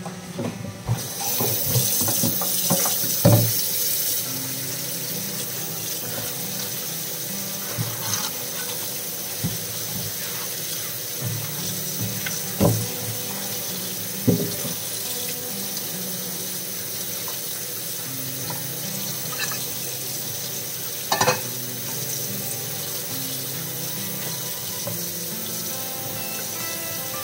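Tap water running into a stainless steel sink over okra in a plastic colander. The water starts about a second in, and a few sharp knocks come as the pods are handled in the colander.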